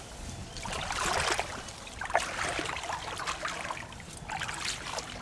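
Shallow floodwater splashing and sloshing around a person's legs as they wade, in a few irregular bursts.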